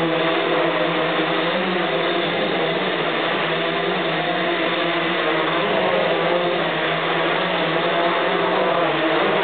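Hexacopter's six electric motors, mounted at a 40-degree tilt, and their propellers whirring steadily in flight, the pitch of the hum wavering up and down as the motor speeds shift.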